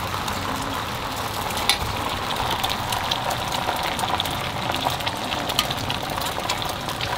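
Thin sheet of beaten egg frying on a hot flat-top griddle: a steady sizzle with fine crackling throughout and one sharper click about two seconds in.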